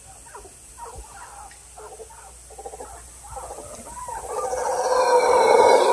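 Mantled howler monkeys calling in the treetops: short scattered calls at first, then about four seconds in a loud, deep howling swells up and carries on.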